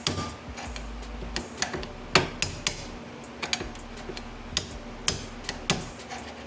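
Irregular metallic clicks and taps of hand tools on drum-brake hardware as a brake-shoe clip is worked off, with the sharpest click about two seconds in.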